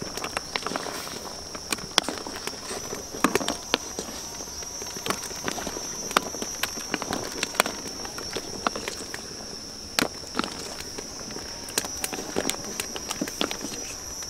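Insects droning steadily at a high pitch, with irregular sharp clicks and knocks throughout.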